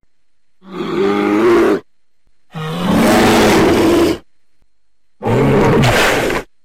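Bear roaring three times, each roar lasting over a second with short silences between.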